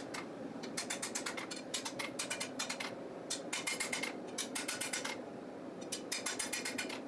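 Short bursts of rapid, ratchet-like mechanical clicking, about ten clicks a second, over a steady low hum.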